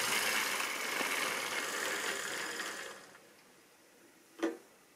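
Model railway train running past close by: locomotive motors whirring and wheels rattling along the track, loud for about the first three seconds and then fading away, with one sharp knock about four and a half seconds in.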